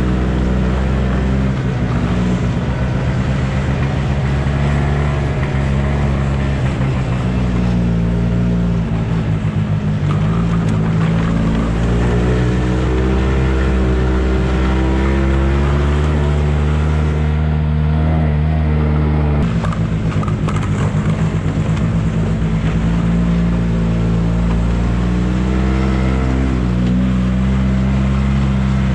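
Yamaha Bravo 250 snowmobile's two-stroke engine running under way while towing a loaded sled trailer. Its note rises and falls with the throttle.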